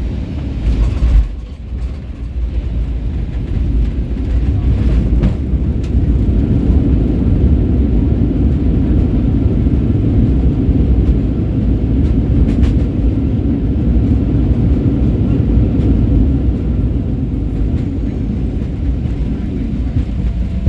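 Inside a Boeing 737 airliner cabin on landing: a sharp jolt about a second in, then a loud, low rumble of engines and runway that builds over a few seconds, holds steady and eases slightly near the end, as during touchdown and the rollout.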